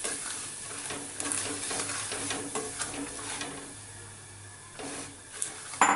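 Semolina (sooji) being roasted and stirred with a plastic ladle in a nonstick pan, the grains scraping and rustling against the pan, as more semolina is poured in. One sharp knock near the end.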